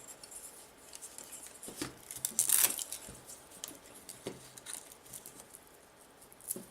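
Small clicks, ticks and rustles of hands handling small parts and tools at a workbench, with a louder scraping rustle about two and a half seconds in.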